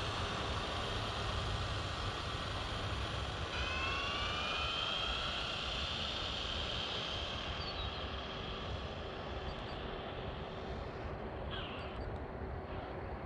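Steady outdoor rumble with a distant high-pitched motor whine that rises in pitch starting about a third of the way in, then fades.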